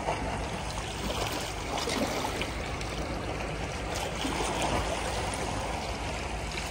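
Sea water washing and splashing against a harbour, over a steady low rumble.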